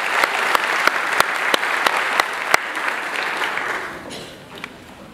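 Audience applauding, with some sharp individual claps standing out; the applause fades out about four seconds in, leaving only a few scattered claps.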